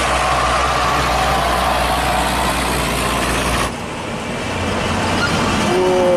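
Trucks and intercity buses running on a highway: steady engine and road noise that changes abruptly about three and a half seconds in. The traffic noise then builds as the vehicles approach, and a two-note horn sounds near the end, dropping in pitch.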